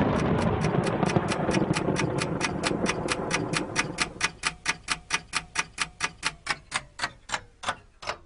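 Intro sound effect: a rumbling noise that fades away over the first four seconds, under a ticking like a clock's that runs on and slows near the end, with a faint falling tone beneath.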